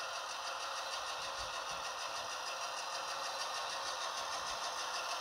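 HO-scale model locomotive running on an old Proto chassis: a steady, even whir from its small electric motor, gears and wheels on the rails, with a fast fine pulsing.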